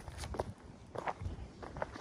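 Footsteps of people walking on a hiking trail: a handful of uneven steps.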